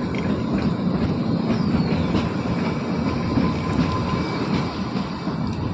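Kalka–Shimla narrow-gauge toy train running along the line, with the steady rumble of its wheels on the rails.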